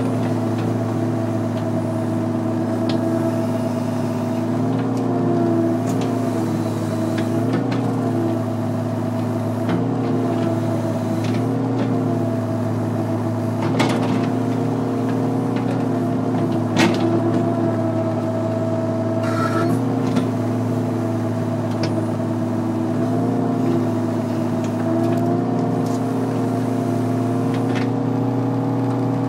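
Volvo excavator's diesel engine running steadily, heard from inside the cab, its drone wavering slightly in pitch at times as the machine is worked. A few sharp clicks or knocks cut through, the clearest about fourteen and seventeen seconds in.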